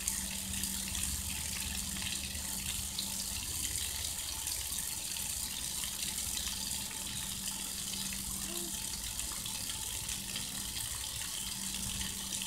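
Water gushing steadily from an outdoor park water spigot and splashing onto wet pavement.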